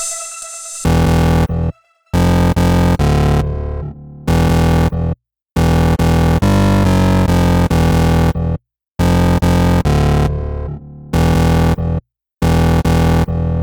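Loud electronic music with a heavy synth bass, played in blocks that cut off abruptly into brief silence about every three and a half seconds and then start again.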